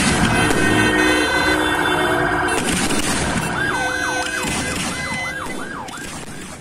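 Fireworks going off, with sharp bangs near the start and about two and a half seconds in, over a dense din of steady tones. From about halfway a siren yelps, wailing rapidly up and down about three times a second. Everything fades out at the end.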